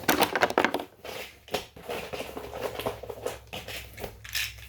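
Loose metal tools and parts being rummaged through by hand, with a quick run of clinks and knocks at first, then softer rustling and clatter.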